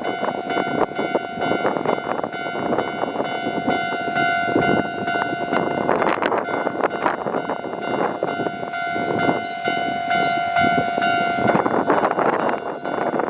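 Kintetsu 1440-series train running past on a safety-check test run, with dense clattering from the wheels over the track. A steady, pitched tone with several overtones sounds over it and cuts off suddenly near the end.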